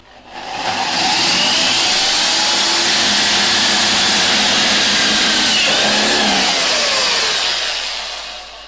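Power drill spinning up, running steadily for about seven seconds with its pitch wavering, then winding down, drilling a 12 mm hole through a plastic water bottle.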